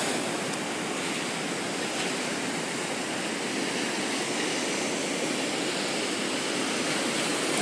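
Ocean surf breaking and washing against a rock seawall: a steady rushing hiss of waves.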